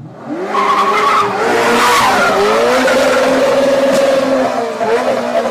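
Sports car engine revving hard, its pitch climbing in the first half second and again about two seconds in, then held high, with tyre squeal as the car slides.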